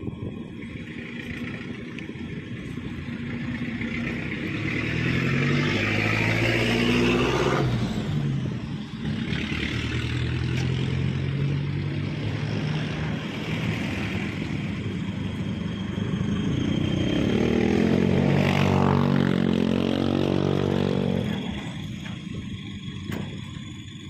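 Backhoe excavator's diesel engine running under load, its speed rising and falling twice in long surges as the machine works.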